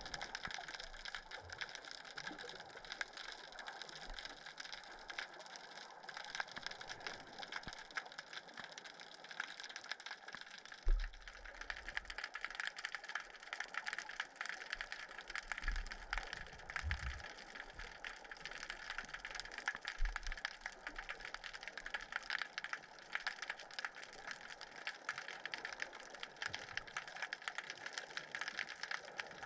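Underwater sound beneath an ocean pier: a dense, steady crackle of fine clicks, with a few low thuds, the strongest about eleven seconds in and again around twenty seconds.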